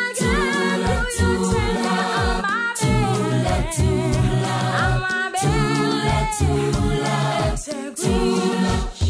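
Background music: an a cappella choir singing.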